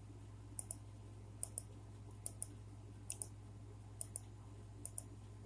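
Computer mouse clicking in quick pairs, about one pair a second, over a steady low hum.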